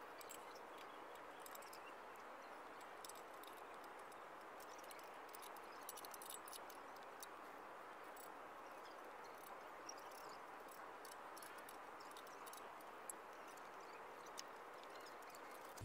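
Near silence: a faint, even hiss with scattered faint high clicks and ticks.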